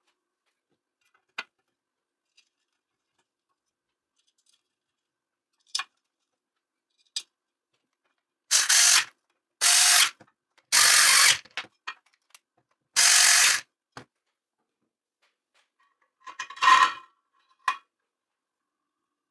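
Small cordless electric screwdriver driving screws into an aluminium frame: four short bursts of whirring over about five seconds. Light clicks of metal parts being handled come before, and a brief rattle comes near the end.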